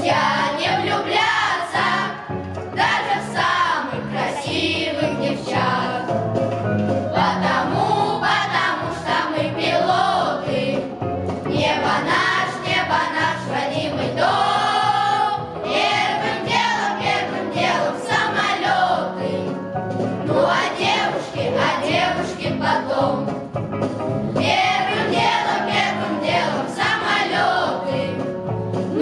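A boys' choir singing a song together in unison, continuous through the whole stretch.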